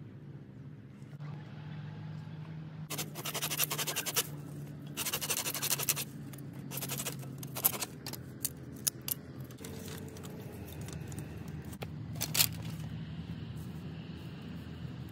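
Hands scraping and rustling through dry soil and leaf litter in several short bursts, then a few sharp clicks and knocks of sticks being handled, over a low steady hum.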